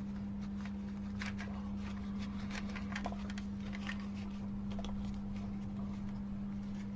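Faint rustles and light clicks of hands handling a small remote control's parts and tape, scattered through, over a steady low electrical hum.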